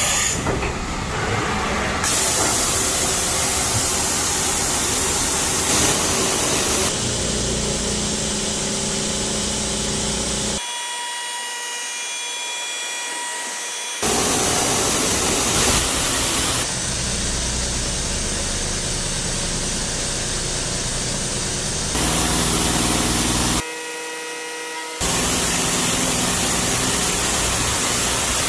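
Vertical machining centre cutting a steel plate with flood coolant spraying: a steady hiss of coolant and cutting noise, broken by abrupt changes as one short machining clip gives way to the next.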